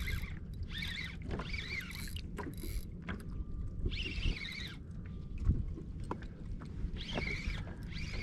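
Baitcasting fishing reel being cranked in short spells, each a whirring whine of about a second that wavers in pitch, over water sloshing against a small boat.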